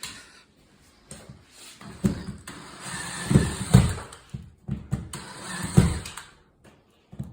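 Two stretches of scraping and knocking as a metal ceiling electrical box and its screws are worked loose from the drywall. The first lasts about two seconds, the second about a second.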